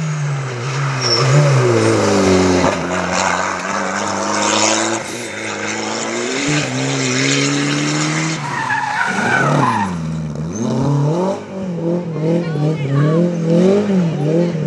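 Rally car engines at high revs, their pitch climbing and dropping several times through gear changes. About nine seconds in, one car sweeps past with a steep fall in pitch. Near the end, another engine's note wavers quickly up and down.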